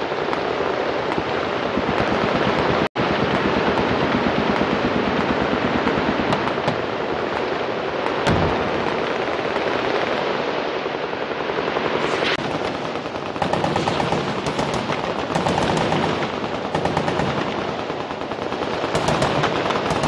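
Many machine guns firing at once in continuous, overlapping automatic bursts, with a single heavy low thump about eight seconds in. The sound cuts out for an instant about three seconds in.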